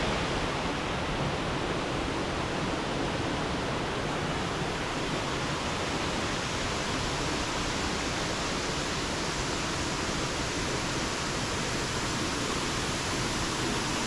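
Steady rush of falling and flowing water from a waterfall and stream, an even hiss that holds unchanged throughout.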